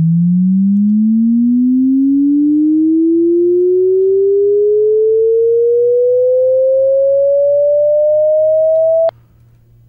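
Computer-generated pure sine tone, a MATLAB linear chirp sweeping from 110 to 660 hertz, played through the sound card: one loud, steady tone gliding smoothly upward in pitch, cutting off suddenly with a click about nine seconds in.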